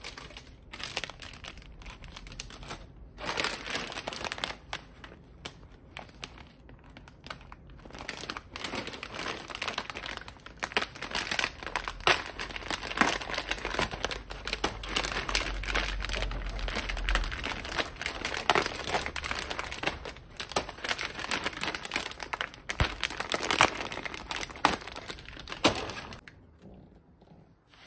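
Plastic snack-food bags crinkling and rustling as they are handled and packed into a clear plastic tray, a dense run of crackles that dies away near the end.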